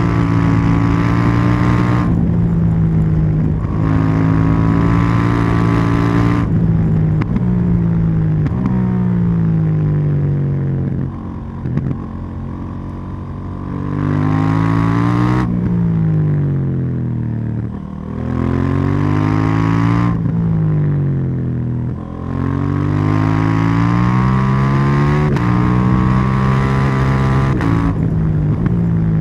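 KTM 790 Duke's parallel-twin engine and exhaust under way: it pulls hard with brief breaks for gear changes, then the pitch falls as it slows and goes quieter off the throttle, before revving up and dropping again several times.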